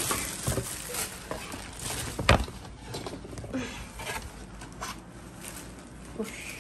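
Handling noises of a gift being unboxed: rustling and light knocks of a cardboard box and the wrapped item, with one sharp knock about two seconds in.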